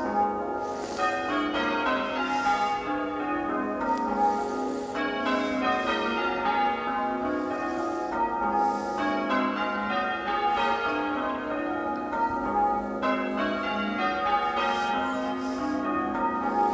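Church tower bells ringing changes in a peal, a steady unbroken sequence of strikes one after another, each bell's tone overlapping the next.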